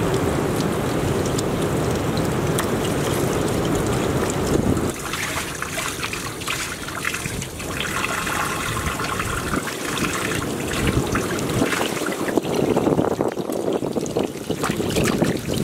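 Water running from an outdoor tap and splashing onto fish in a large metal tray as hands wash them under the flow; the sound of the water changes partway through as the fish are moved.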